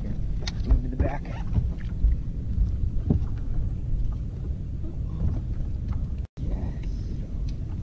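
Steady low rumble of wind and water on the microphone of a camera mounted on a bass boat's deck, with scattered knocks on the deck.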